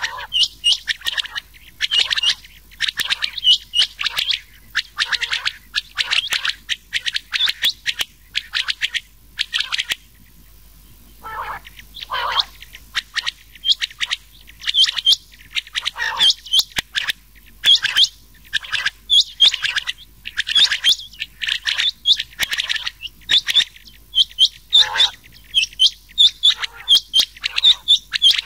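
Rain quail and common quail calling: runs of rapid, short, sharp repeated notes. The calling breaks off briefly about ten seconds in, then resumes with a few lower notes.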